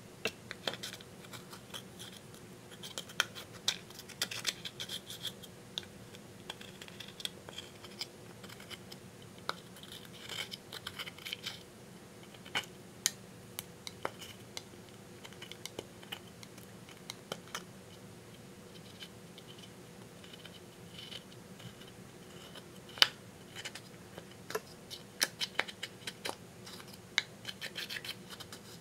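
Small metal spatula scraping and chipping pressed powder blush and eyeshadow out of a makeup compact: irregular scratching with sharp little clicks and taps, coming in spells with quieter stretches between.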